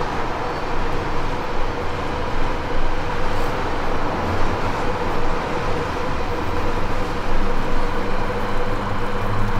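Steady city road traffic noise, with a low engine hum from passing vehicles that swells in the middle and again near the end.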